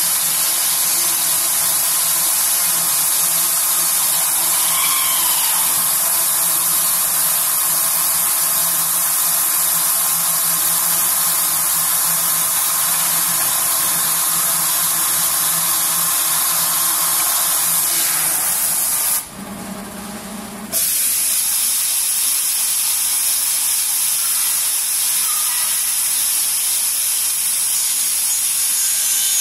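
Artikon DG604 CNC router running: a loud, steady high hiss over a steady hum. The sound dips briefly for about a second and a half about two-thirds of the way through, then resumes.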